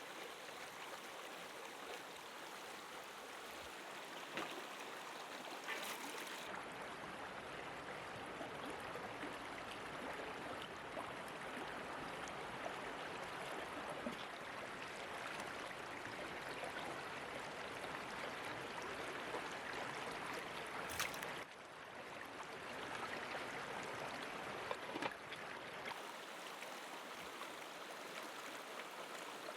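River water flowing steadily, with a few faint clicks, and the rush changing abruptly in tone a few times.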